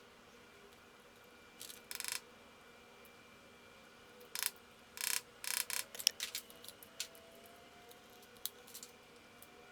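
Short metallic clicks and rattles of tools and engine parts being handled: a brief group about two seconds in, then a denser run of clinks from about four and a half to seven seconds in, over a faint steady hum.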